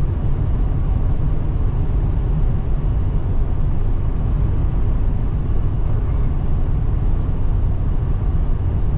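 Pickup truck cruising at highway speed: a steady low rumble of tyre and engine noise from inside the cab.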